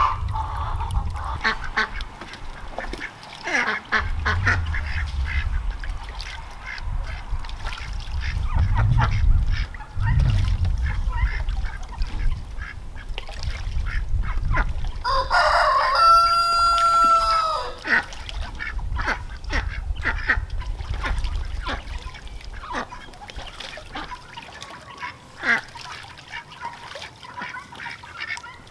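Ducks calling and dabbling around a shallow plastic kiddie pool, with scattered short quacks and splashes throughout. About halfway through, a rooster crows once: a long call of about two and a half seconds that falls at the end, the loudest sound.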